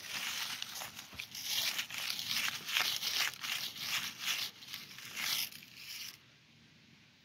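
Dry fallen leaves rustling and crunching in quick, irregular crackles, stopping suddenly about six seconds in.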